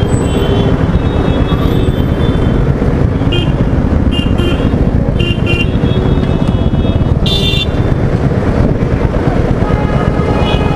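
Heavy traffic with motorcycle and vehicle engines idling in a steady low rumble, while horns honk again and again in short beeps. The loudest, longest honk comes about seven seconds in.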